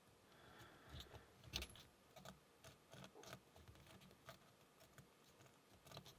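Faint, scattered metallic clicks of a lock pick and tension wrench working the pins inside a Burg Wächter Karat padlock, the loudest about a second and a half in.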